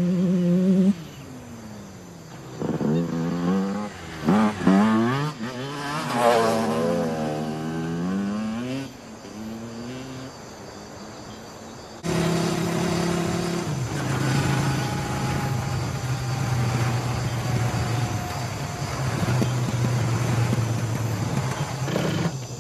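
Motorcycle engine revving, its pitch sweeping up and down again and again, then, after a sudden change about twelve seconds in, running steadily at an even pitch.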